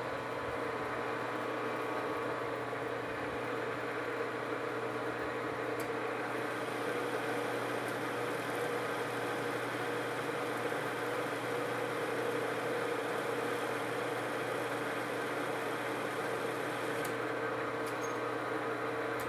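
Metal lathe running steadily, a hum with a few held tones, while its bit takes a 30-thousandths-of-an-inch cut in a hot-rolled steel bar. A faint high hiss comes in about six seconds in, with a few light clicks then and again near the end.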